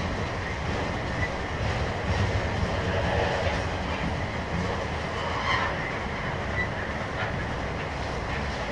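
Freight train rolling steadily, with a low rumble of the cars and wheels clacking over rail joints. Brief high wheel squeaks come now and then.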